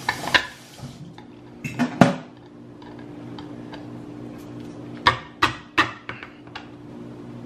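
A kitchen knife being stabbed point-first into the lid of a steel food can to punch it open, since no can opener is at hand: a series of sharp metallic clanks, the loudest about two seconds in, then three more in quick succession about five seconds in.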